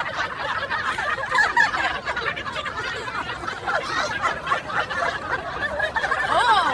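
Several people laughing together, a dense overlapping run of high-pitched laughter, with a rising-then-falling squeal near the end.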